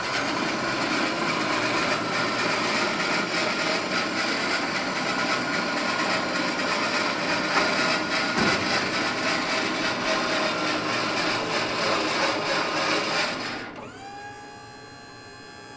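Switch-N-Go hoist's hydraulic pump running steadily under load as the hoist arm lifts a roll-off container body and draws it onto the truck chassis. The pump cuts off about 13 seconds in, leaving a quieter steady hum.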